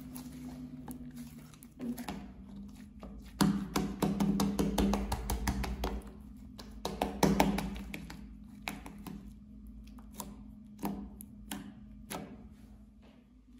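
Thick slime, clear slime with eyeshadow powder mixed in, being squeezed, kneaded and pressed flat by hand on a tabletop, giving sticky squishing with rapid crackling clicks and pops. It is loudest in two stretches, about three and a half and seven seconds in.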